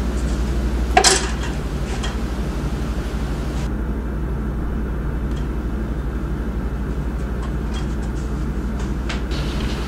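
Steady low rumbling drone, with one sharp knock about a second in and a few faint ticks later.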